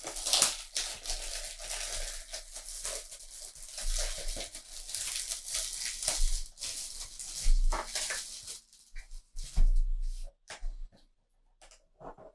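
A cardboard box of foil sticker packets being torn open and the packets handled, a dense run of tearing and rustling with a couple of heavier thumps. The noise thins out to a few small clicks after about nine seconds.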